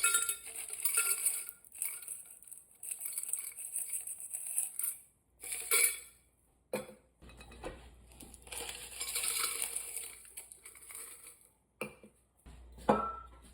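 Kitchen clatter of dishes, containers and cutlery being handled, with scattered sharp knocks and clinks, the loudest near the end.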